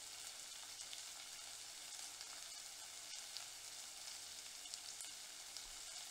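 Chopped small onions and garlic cloves frying in hot oil in a pot: a faint, steady sizzle with scattered small crackles.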